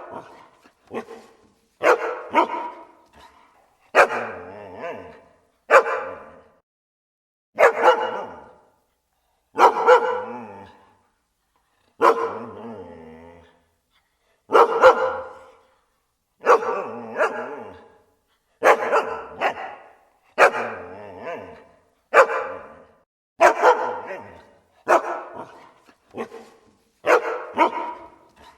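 Dogs barking: loud single and double barks, about one every one to two seconds, each with a short trailing echo and a brief silence between.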